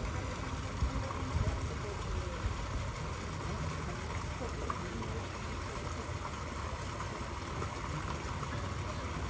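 Steady background noise with a low rumble and hiss, with faint distant voices of people now and then.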